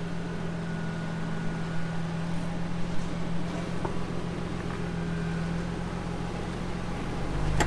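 Jeep Cherokee XJ engine running steadily at low revs as the lifted Jeep crawls down off a rock ledge. Near the end a louder, deeper low hum takes over.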